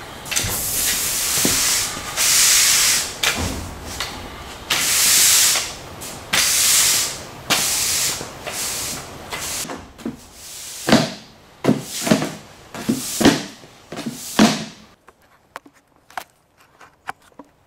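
Push broom sweeping a concrete floor: a series of long, hissing bristle strokes, then shorter, sharper strokes. The sweeping stops about fifteen seconds in, and a few faint clicks follow.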